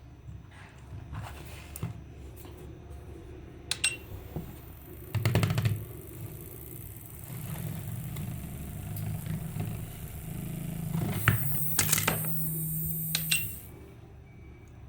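A homemade high-voltage device buzzing, with scattered sharp clicks and a short loud burst about five seconds in. A steady hum then builds, with a high hiss over it for the last few seconds before it cuts off suddenly.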